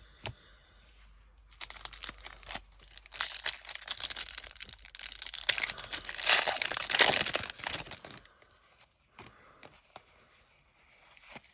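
Foil booster pack wrapper being torn open and crinkled for about six seconds, loudest in the middle, then a few light taps.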